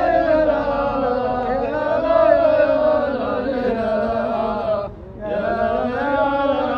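Men chanting a Hijazi rajaz verse together into a microphone, the voices holding long, slowly wavering notes. The chant breaks off briefly for breath about five seconds in and then resumes.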